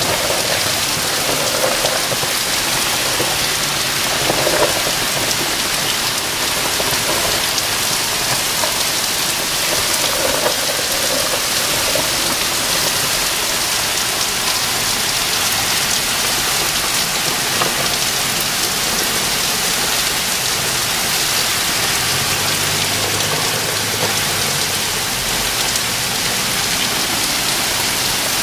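Heavy thunderstorm downpour: dense, steady rain pounding on pavement and the ground.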